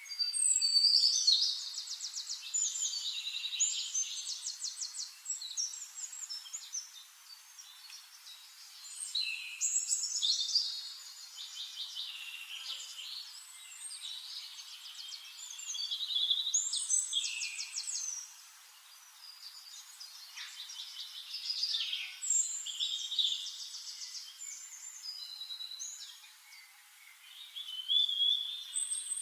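Songbirds singing in bouts of fast trills and chirps, a new phrase every few seconds, over a faint steady hiss.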